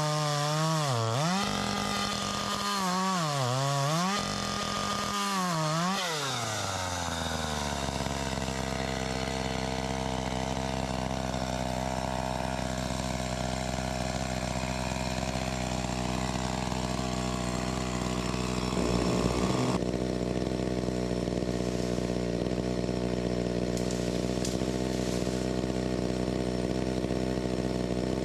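Chainsaw engine at high revs, its pitch sagging three times as it bites into fallen wood. It then drops to a steady idle about seven seconds in.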